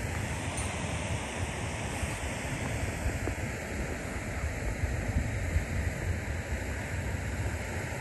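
Snowstorm wind rushing steadily, with gusts buffeting the microphone in a low, uneven rumble.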